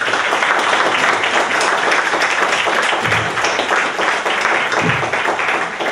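Audience applauding: many hands clapping in a dense, steady patter that eases a little near the end.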